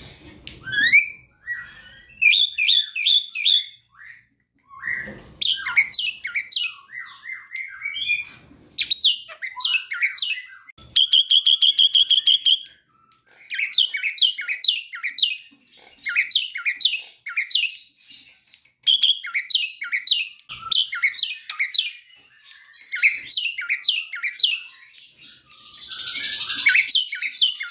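Javan myna singing in phrases of quick, sliding whistled notes, a second or two each with short breaks between. About 11 seconds in comes a fast, even rattling trill, and near the end a harsher, noisier call.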